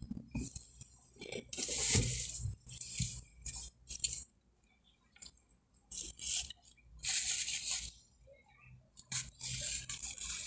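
Eating sounds close to the microphone: several short bursts of crackling and crunching as takeout grilled chicken is picked apart and chewed, with a few light clicks between them.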